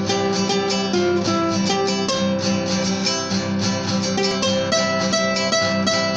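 Two acoustic guitars playing together: a melody of plucked notes over a held bass line, with notes struck at a steady pace of about four a second.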